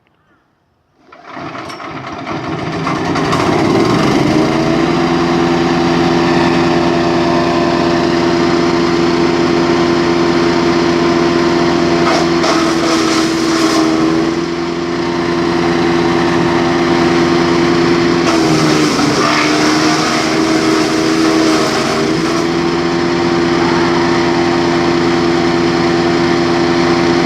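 A 100 mm wood chipper's engine comes in about a second in and runs up to a steady, loud working speed over a few seconds. Twice, its pitch sags briefly while a rougher, rattling noise rises over it.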